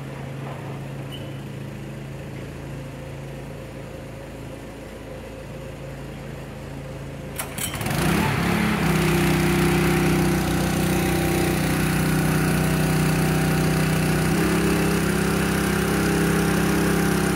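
Forklift engine running at a low steady idle; about eight seconds in, after a couple of clicks, it revs up with a quick rise in pitch and runs on steadily, much louder.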